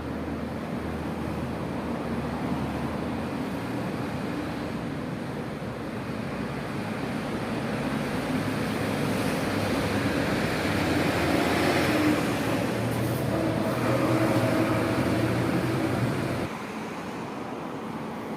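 Pressure washer running, its water jet spraying onto a floor to strip moss, a steady hiss over the machine's hum. It grows louder part way through and drops off sharply near the end.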